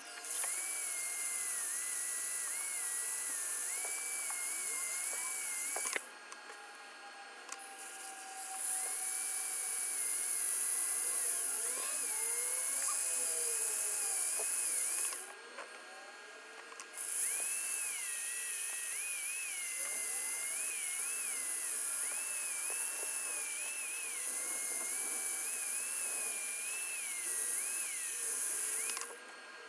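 American Flyer tinplate locomotive's electric motor running on transformer power, its driving wheels spinning against a Scotch-Brite pad to polish them. It makes a high-pitched whir with an abrasive hiss, and the tone wavers with the load. It stops briefly twice, about 6 and 15 seconds in, as the wheels are changed.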